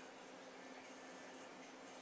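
Near silence: faint room tone with a steady low hum and hiss.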